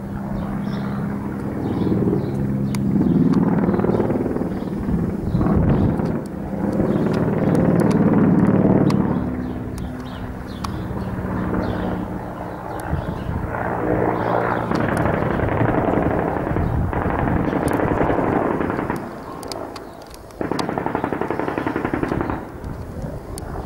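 A military helicopter's steady rotor and engine drone overhead, under repeated long bursts of automatic gunfire with scattered single shots. The last burst cuts in suddenly near the end and stops just as abruptly.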